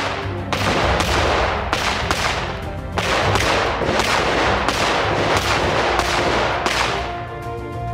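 CZ P10 C striker-fired pistol firing a steady string of shots, about two a second, each shot trailing off briefly; the shots stop about seven seconds in. Background music plays underneath.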